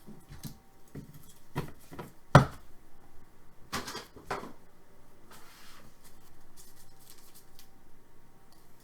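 Trading cards being handled on a table: a few sharp taps and clicks, the loudest about two and a half seconds in, with a short rustle a little past the middle.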